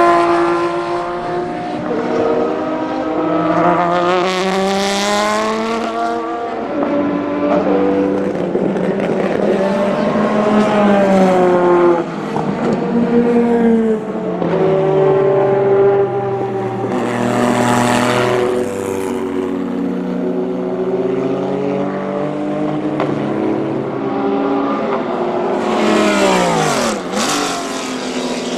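Racing engines of GT cars and Le Mans prototypes at full throttle, one car after another. Each engine note climbs through the gears and drops sharply as the car passes by.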